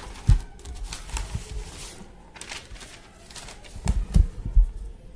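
Desk handling noises: short paper-like rustles, and dull thumps, one about a third of a second in and three close together about four seconds in.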